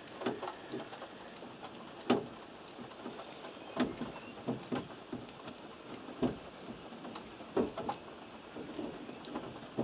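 Steady rain falling, with irregular sharp clicks and knocks scattered through it, the loudest about two seconds in.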